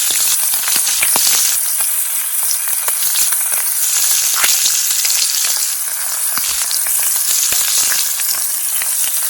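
Brook trout frying in melted butter in a pan: a steady sizzle with many small crackles and pops scattered through it.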